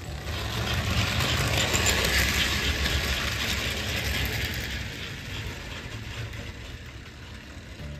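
American Flyer S-gauge toy steam locomotive and freight cars rolling past close by, a rattling rumble of metal wheels on the track and the motor running. It is loudest a second or so in and fades as the caboose goes by.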